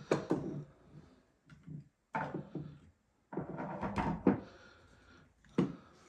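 Handling noise from an EK Archery Vlad repeating crossbow being lifted and turned on a wooden table: a few separate knocks and clunks, with a sharp knock near the end.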